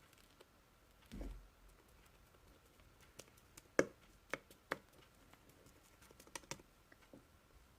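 Slime being handled by hand: a soft muffled thump about a second in, then a scattered series of sharp, sticky clicks and pops as it is pressed and stretched.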